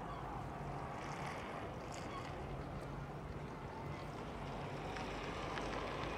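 Motorboat engines running, a steady low hum that swells and fades over a haze of noise.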